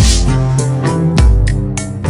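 Background music with a heavy bass and a steady beat, a sharp hit on the first beat.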